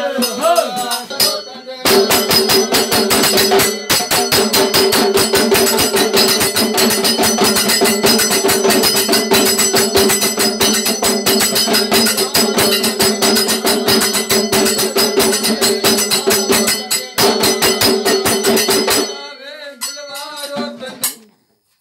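Several gumte clay pot drums beaten together in a fast, dense rhythm, each stroke carrying the drums' steady low ring. A voice calls out with a gliding pitch before the drumming starts about two seconds in; the drumming breaks briefly twice and fades out near the end.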